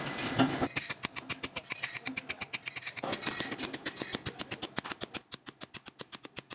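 Rapid, evenly spaced mechanical clicking, about seven clicks a second, starting just under a second in, with a faint high whine through the middle.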